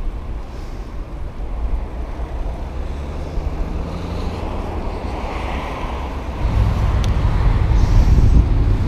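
Wind buffeting the microphone with a dull rumble of passing traffic, growing louder about six and a half seconds in.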